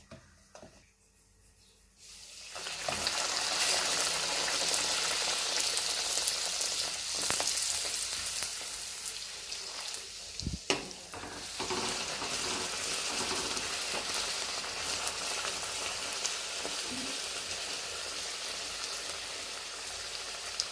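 Bhature deep-frying in hot oil in a kadhai: a steady sizzle that starts about two seconds in. A single knock and a brief drop in the sizzle come about halfway through.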